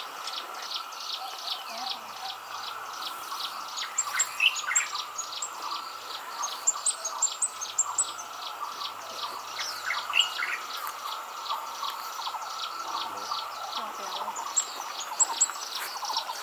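Many small birds chirping rapidly and continuously, with a few louder gliding, whistled calls about four and ten seconds in.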